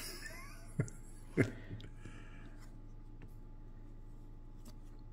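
Cardboard trading cards being handled and shuffled through by hand: a soft rustle of cards sliding against each other, with two sharp clicks in the first second and a half, then a few faint ticks.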